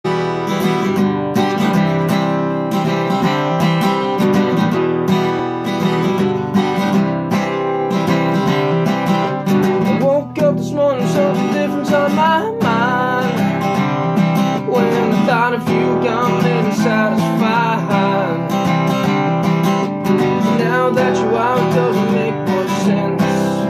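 Steel-string acoustic guitar strummed in a steady rhythm as a song's intro. About halfway through, a voice comes in over the guitar.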